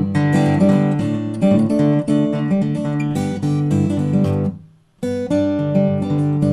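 Acoustic guitar played solo, an instrumental passage of picked and strummed chords, breaking off briefly about four and a half seconds in before carrying on.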